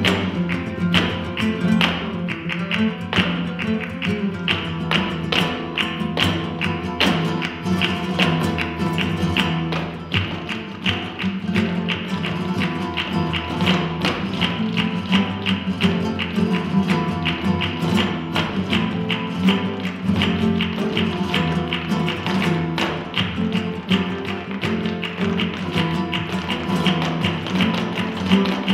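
Live flamenco seguiriya: acoustic flamenco guitars playing while two dancers' shoes strike the stage in rapid zapateado footwork, with hand claps (palmas).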